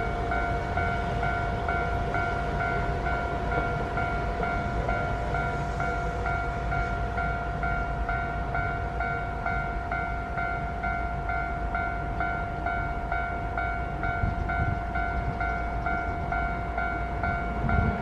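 Japanese railway level-crossing warning bell ringing, a steady, evenly repeating electronic ding while the crossing's red lights flash, over a low steady rumble.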